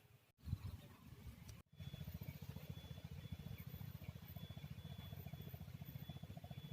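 A small engine running steadily with a rapid, even chugging pulse, heard faintly. It starts about two seconds in, after two brief dropouts.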